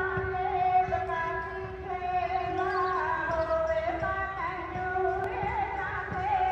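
Kirtan-style devotional singing: a slow melody of long held, sliding notes over a steady drone note, with a low rumble underneath.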